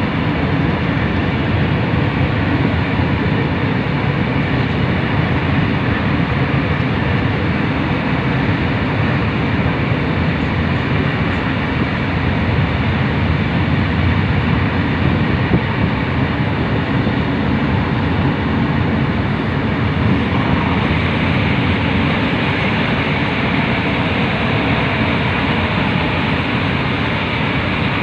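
Steady running noise of a high-speed train in motion, heard from inside the carriage: an even rush with a strong low rumble and no breaks.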